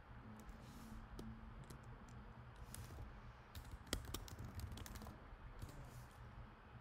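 Computer keyboard being typed on: a scattered run of faint key clicks that grows thickest about halfway through, with the single loudest click near the middle, over a faint low steady hum.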